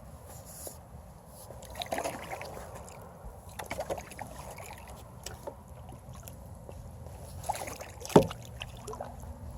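Kayak paddling in shallow river water: a carbon fiber paddle dipping and splashing, with scattered knocks and one sharp, loud knock about eight seconds in.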